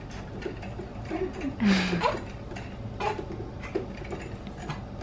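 Baby doorway jumper giving a quick, rhythmic run of small squeaky ticks as the baby bounces in it, with one brief louder noise about two seconds in.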